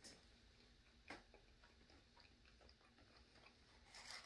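Near silence with faint, scattered mouth clicks from chewing food, one slightly louder about a second in.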